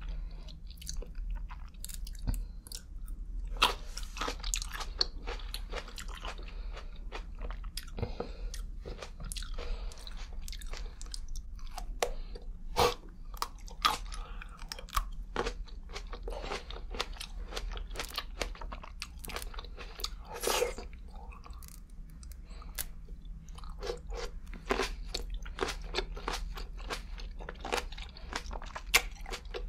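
Green grapes being bitten and chewed close to a lapel microphone: many crisp crunches as the skins pop, between softer chewing.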